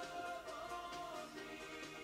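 Background music with a steady melody.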